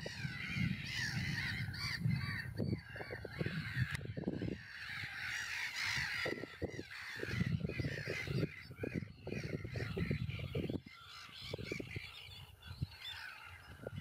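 Ducklings peeping in a dense, continuous chorus of many overlapping high calls, with a low rushing noise underneath.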